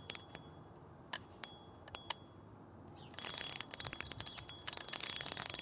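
Several sharp metallic clicks, each with a brief bell-like ring, followed about three seconds in by a fast, continuous run of ratchet-like clicking.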